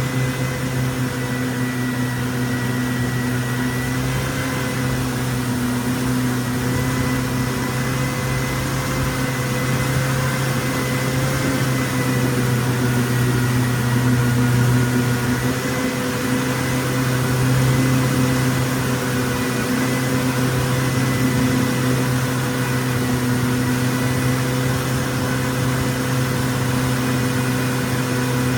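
Boat engine running steadily at an even speed, with a constant hum and a broad rushing hiss of water and wind.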